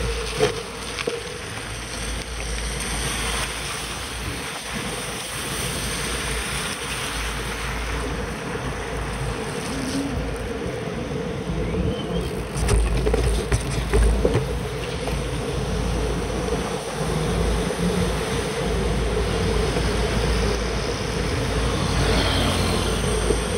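Steady wind rumble on the camera's microphone and road noise from a bicycle rolling on wet pavement, with cars going by on the wet road. A few louder bumps about twelve to fourteen seconds in.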